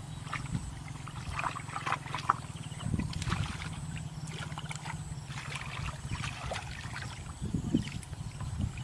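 Water splashing and trickling over a steady low hum with a fast pulse, like a small motor running.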